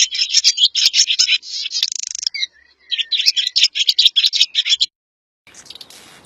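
Swallow twittering: a rapid stream of high chirps and short buzzy trills, with a brief pause midway. It cuts off just before five seconds in, and a fainter steady hiss begins about half a second later.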